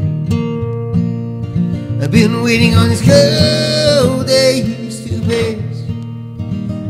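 Acoustic guitar playing, joined about two seconds in by a man's voice singing long held notes that trail off past the middle.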